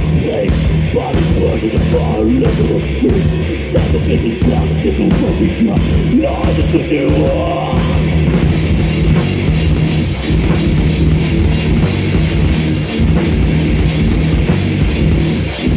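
Heavy metal band playing live at full volume: distorted guitars, bass and drum kit, with a vocal line over the first half that drops out about eight seconds in, leaving the instruments.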